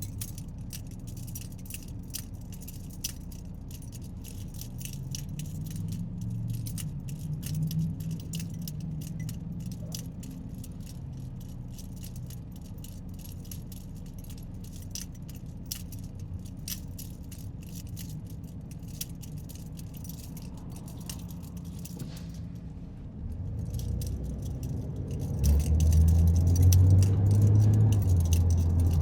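Inside a moving car: a steady low engine and road hum under a constant light rattling and ticking of loose things in the cabin, like keys jangling. The rattling stops for a moment, then the engine note grows much louder and deeper near the end as the car accelerates.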